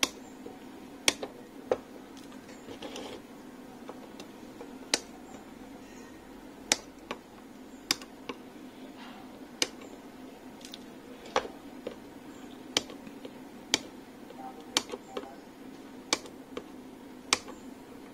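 Side cutters snipping the excess leads of freshly soldered components on a circuit board: a sharp click with each cut, about one a second, sometimes two in quick succession.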